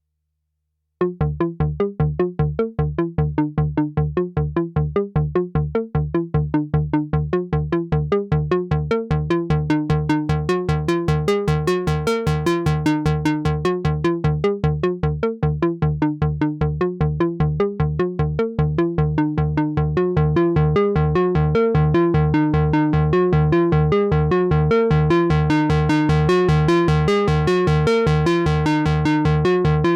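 Behringer Odyssey analog synthesizer playing a fast repeating pattern of short low notes, about five a second, starting about a second in. The tone brightens as the filter opens, most markedly near the middle and again near the end.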